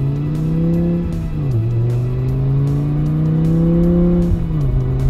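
Car engine sound effect revving up, its pitch climbing and then dropping sharply twice as if shifting gear, like a car accelerating through the gears, with music underneath.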